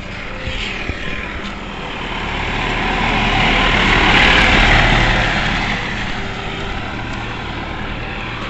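A motor vehicle driving past at close range: it grows louder as it approaches, is loudest about halfway through, then fades as it drives away.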